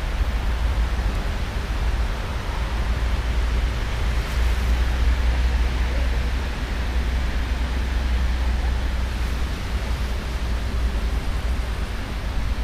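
Freight train cars rolling past on the rails, a steady rumbling noise without distinct wheel clicks.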